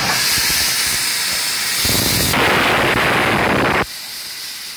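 Steam locomotive 50 4073 hissing loudly as steam is let out low at the front near the cylinders. The steady hiss starts suddenly, grows louder and fuller about two seconds in, and cuts off abruptly near the end.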